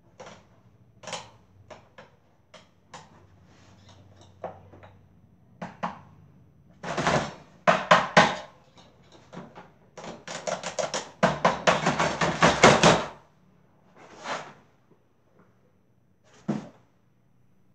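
Hands handling a small plastic electric fan and its loose wires: scattered clicks and knocks, with two louder bouts of rapid rattling and banging, a short one midway and a longer one a few seconds later.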